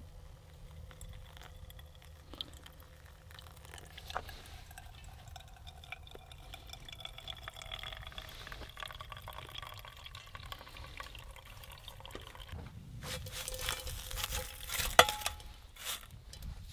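Hot water poured slowly from a metal pot onto coffee grounds in a paper pour-over filter, a long, faint trickle whose pitch creeps up as the cup below fills. Near the end comes a louder burst of hiss and clatter with one sharp clink, the loudest sound.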